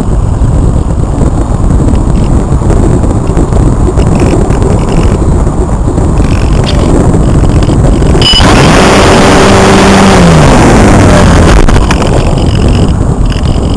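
Loud wind rush and buffeting on the microphone aboard a Multiplex Cularis electric RC glider in low flight. About eight seconds in, the whine of its electric motor rises, holds steady for about three seconds and winds down.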